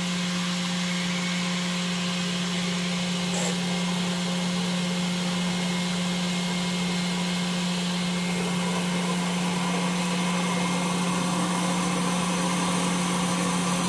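Steady hum and rushing water of a running 3-inch Grundfos 1 hp submersible well pump on a test rig, with its discharge ball valve slowly being closed to raise head pressure. The rushing grows slightly louder in the second half as the valve is throttled further.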